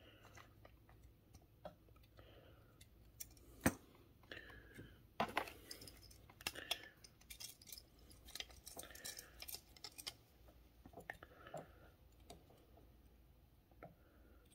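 Faint clicks and taps of plastic model airliner parts being handled and pressed together as engine pods are fitted onto the wing, with soft handling noise in between; the sharpest click comes about three and a half seconds in.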